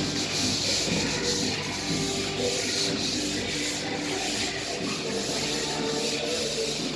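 Sanding of dried drywall joint compound before the final coat, a steady abrasive hiss.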